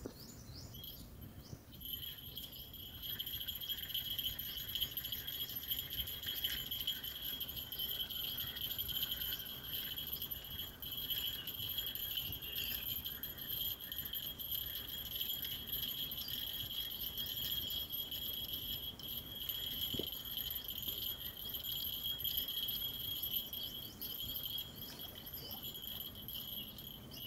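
Insects calling in a steady, high-pitched two-tone chorus that sets in about two seconds in. Underneath is faint rapid ticking from a fishing reel being wound as a hooked fish is played in.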